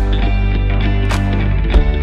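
Background rock music with guitar, bass and a steady drum beat.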